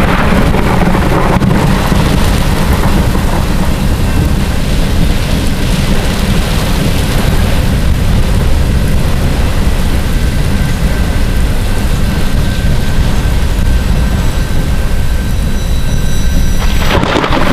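Steady, loud rumble of a freight train's cars rolling past, mixed with heavy rain, heard from inside a car.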